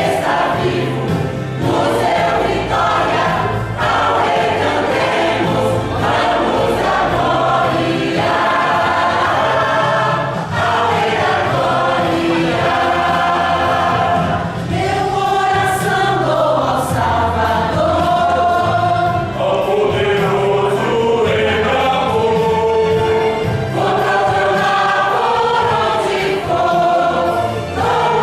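A church choir singing Christian gospel music, several voices holding notes in harmony over a low bass accompaniment.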